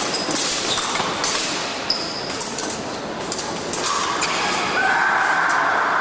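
Fencing hall noise: short metallic clicks and clinks, with thuds of feet on the piste, over a busy reverberant hall. About four seconds in, a steady electronic-sounding tone starts and keeps on.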